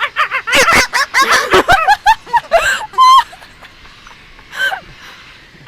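Pet talking bird calling in a rapid string of short, high-pitched calls that bend up and down in pitch for about three seconds, then one more call shortly before the end.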